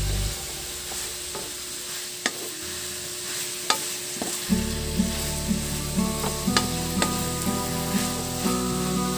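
Pork intestines sizzling in a wok as a wooden spatula stirs and tosses them, with sharp knocks of the spatula against the pan now and then.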